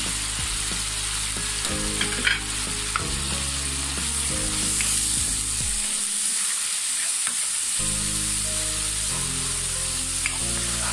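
Chopped onion, garlic and freshly added ground spices sizzling in hot oil in a wok, stirred with a spatula: the masala being fried. A steady hiss, with a few light clicks of the spatula against the pan.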